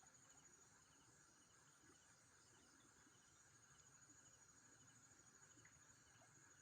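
Near silence with a faint, steady high trill of night insects.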